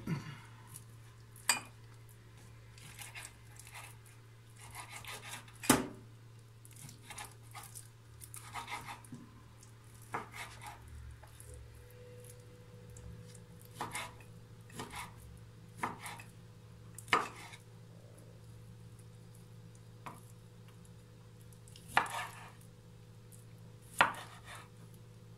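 Kitchen knife cutting raw chicken breast into cubes on a wooden cutting board. The blade knocks against the board at irregular intervals, a second to a few seconds apart, with softer slicing and scraping sounds between.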